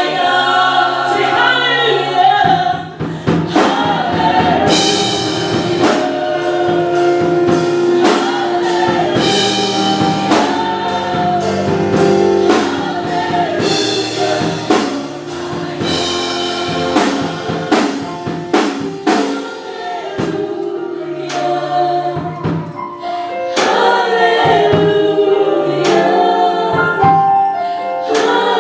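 Gospel choir singing with band accompaniment. A steady drum beat comes in about three seconds in.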